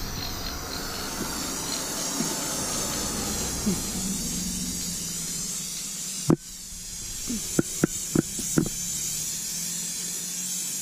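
Aerosol can of Gorilla heavy-duty spray adhesive hissing in a long steady spray onto foam board. It stops briefly with a sharp click about six seconds in, then sprays again, with a few light clicks.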